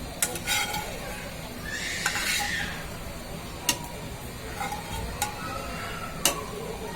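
A cooking utensil stirring chicken in curry sauce in a pot: a few sharp clinks against the pot, with a longer scraping swish about two seconds in.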